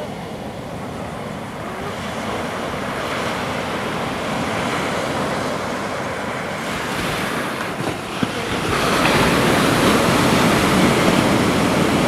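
Surf breaking on a beach: a steady rush of waves that grows louder about nine seconds in, with a brief tap just after eight seconds.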